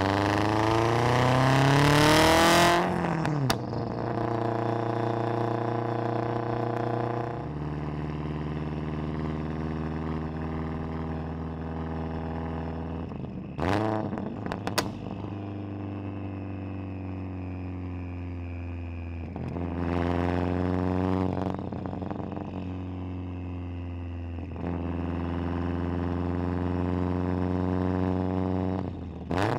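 Exhaust note of a 700 hp turbocharged Subaru STI's flat-four through a Tomei Expreme Ti titanium cat-back and catless downpipe, heard at the tailpipe on the move. The pitch rises hard under acceleration for the first few seconds, then settles into a steady cruising drone, with a few gear changes where the pitch jumps and short sharp noises sound about halfway through.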